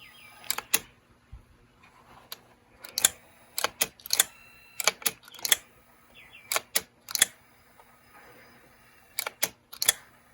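Sharp mechanical clicks of a vintage Dictaphone tape unit's controls and mechanism being worked, coming irregularly and often in quick pairs, over a faint steady hum. The drive belt is too loose to pull the tight tape through properly.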